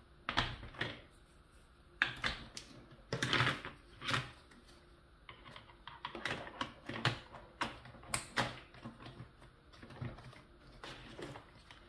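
Hard plastic toy bridge and track pieces being fitted together by hand: irregular plastic clicks and clacks.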